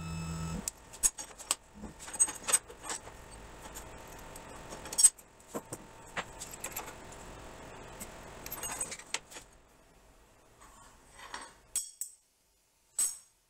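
Steel collet wrenches clinking and clattering against each other and the router collet as a 3/4-inch core box bit is tightened into the table router. A brief motor hum at the very start is the router lift raising the collet. The clinks come thick and fast for most of the stretch, then only a few scattered ones near the end.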